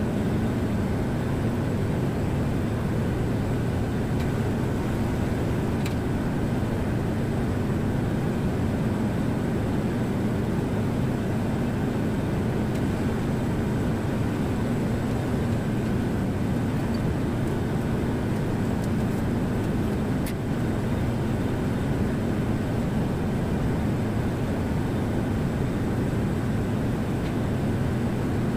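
A steady low drone of running machinery, even throughout, with a couple of faint clicks.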